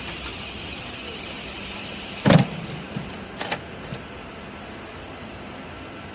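CNC laser tube-cutting machine running, with a steady hiss that fades out about a second in. Then a loud clunk and three lighter knocks over the next second and a half.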